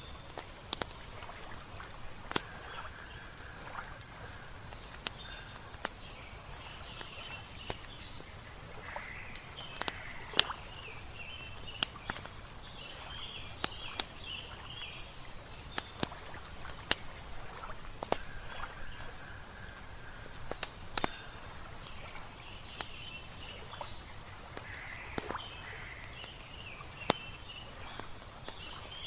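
Campfire crackling with irregular sharp pops, over a steady low rush of water, while songbirds chirp and call.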